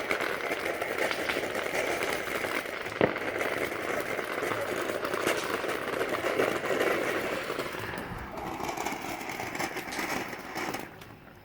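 Ground fountain firework burning with a dense, rapid crackle, one sharp pop about three seconds in; it dies down near the end.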